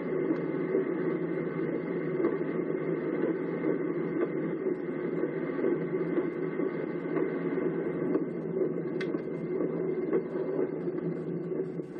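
Steady in-car noise of a car being driven: engine and tyre noise heard from inside the cabin, on a snow-covered, frozen road.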